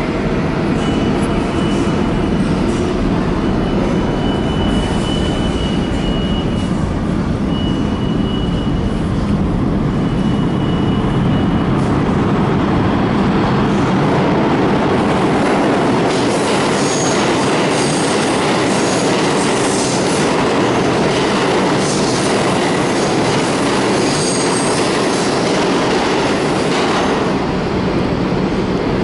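R62A subway train rumbling through the tunnel as it approaches the station, with brief high wheel squeals now and then and the clatter of wheels over rail joints.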